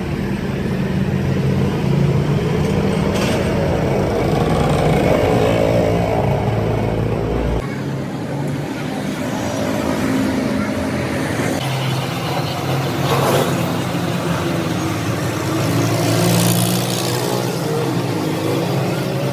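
A motor or engine running steadily, with an abrupt change in the sound about seven and a half seconds in.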